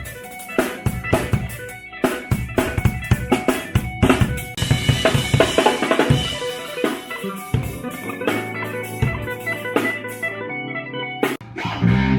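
Live band sound-checking: a drum kit plays busy hits and fills with kick and rimshots under electric guitar notes.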